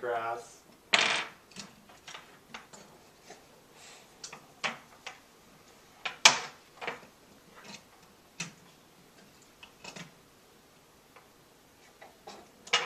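Wooden toy trains, track pieces and small toy cars clacking and knocking on a wooden train table as a child handles them: scattered, irregular clicks, with sharper knocks about a second in and about six seconds in.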